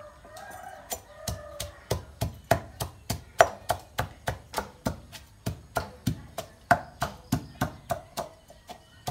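Pestle pounding soaked sticky rice (khao buea) in a small mortar, about three to four even strikes a second, starting about a second in.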